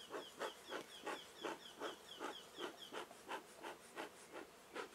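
A bee smoker's bellows pumped quickly, puffing air about three times a second, with a short squeak on each stroke for the first three seconds.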